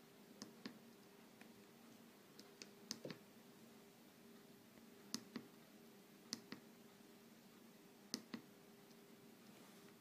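Faint clicks of a Nokia 5700 XpressMusic's navigation key and soft keys being pressed and released, mostly in quick pairs, about five times over a low steady hum.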